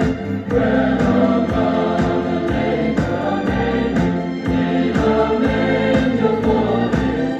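Choral Christmas music with a steady beat, played from a record on a Bush SRP51 record player.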